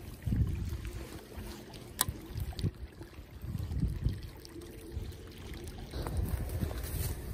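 Footsteps and rustling through dry reeds and grass on a muddy bank: irregular low thuds and brushing, with a sharp click about two seconds in.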